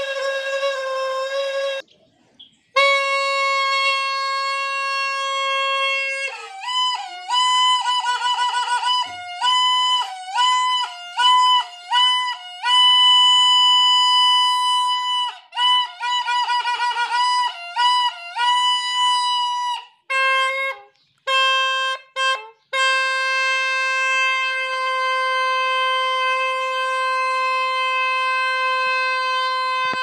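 Green plastic trumpet horn sounding on air from a large balloon tied to its mouthpiece: a loud, reedy tone with a short break about two seconds in. Through the middle the pitch jumps higher and wobbles rapidly up and down with brief stutters and cut-outs, then it settles into a steady lower tone again.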